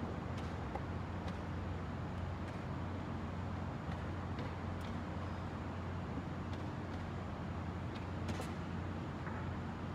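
Scattered light clicks of wooden chess pieces being set down on the board and the chess clock being pressed during a blitz game, over a steady low room hum.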